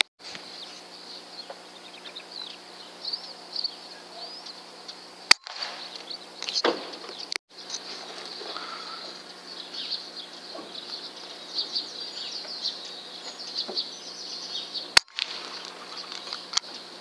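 Small birds chirping and twittering over a faint steady hum, busiest in the middle of the stretch. Two sharp clicks, about five seconds in and near the end, break the sound.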